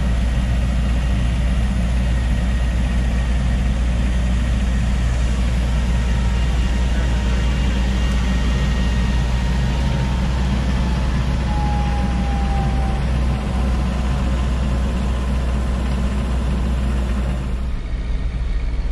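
Shay geared steam locomotive SL-31 standing close by, giving off a steady low rumble and hiss.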